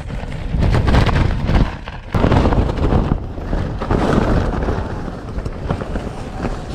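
Strong gusting wind battering a tent, the fabric flapping and rattling, with wind buffeting the microphone. The gusts ease briefly about two seconds in, then pick up again.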